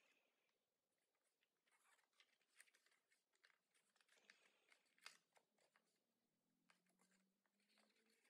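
Very faint crinkling and soft crackling ticks of origami paper being pinched and creased by hand, in irregular small bursts, with one sharper tick about five seconds in.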